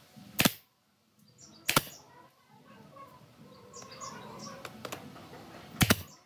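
Pneumatic brad nailer firing brads into pine trim on a curved frame: a sharp shot about half a second in, another near two seconds, and two quick shots close together near the end.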